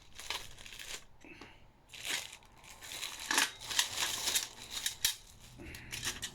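Scissors snipping and packaging crinkling and tearing as a parcel is cut open, in a run of irregular crackles that is busiest a few seconds in.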